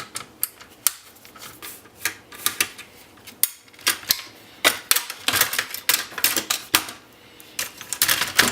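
Irregular sharp clicks, clinks and rattles of hand tools and small metal parts as a small transformer is taken off an Oki 9-pin dot-matrix printer's chassis. The clicks come thickest in the second half.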